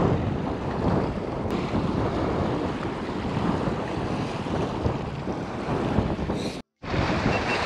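Strong wind buffeting the microphone: a steady, rumbling rush of wind noise. It cuts out for a split second near the end.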